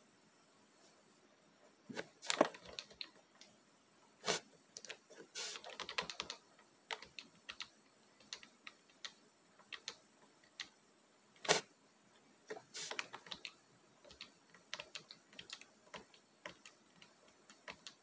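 Faint computer keyboard typing: irregular key clicks and taps, some in quick clusters, with short silent gaps between.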